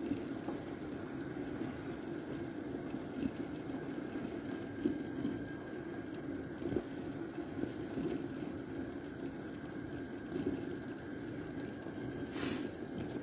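A pot of lamb pieces in salted yogurt sauce simmering, bubbling steadily with small pops. Near the end a metal ladle scrapes briefly in the pot.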